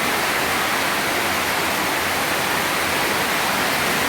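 Heavy tropical-storm rain pouring down, a loud, steady, even hiss.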